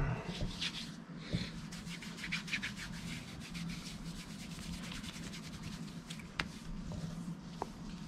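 Hands rubbing over a stubbled scalp and bearded face, spreading cream before a shave: a long run of short, scratchy rubbing strokes over a faint steady low hum.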